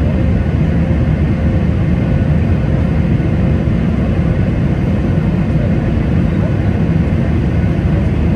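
Steady cabin noise inside a Boeing 737-800 in flight, heard from a window seat over the wing: the CFM56-7B turbofan engines and rushing airflow make an even, deep drone with a faint steady hum in it.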